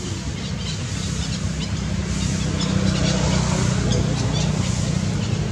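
A motor vehicle engine running nearby: a steady low hum that grows louder about halfway through. Faint high clicks or chirps sound above it.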